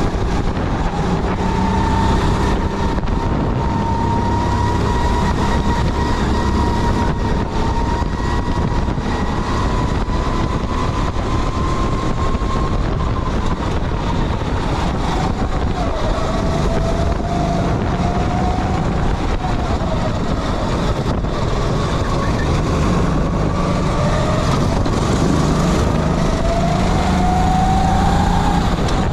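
Sodikart kart's engine running hard, its pitch climbing slowly, dropping, and climbing again several times as the kart speeds up and slows for corners.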